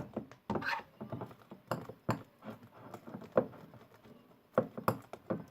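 Sticky glue-and-borax slime being mixed and worked, making irregular wet clicks and squelches as it pulls away. The slime is still tacky, not fully set.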